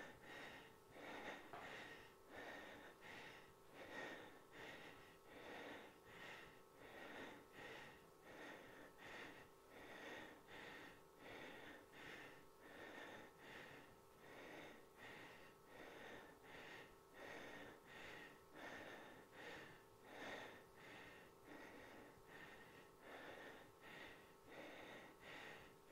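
A woman's faint, rhythmic breathing while doing dumbbell calf raises, about two breath sounds a second, over a faint steady hum.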